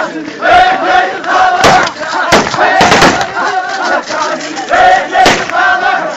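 A crowd of men chanting an Iraqi hosa together in loud, rhythmic phrases: a mourning hosa. About five sharp bangs cut through the chant.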